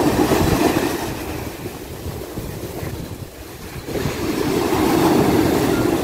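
Sea waves breaking and washing up a sandy shore. The surf swells at the start, eases off near the middle, then swells again as the next wave comes in.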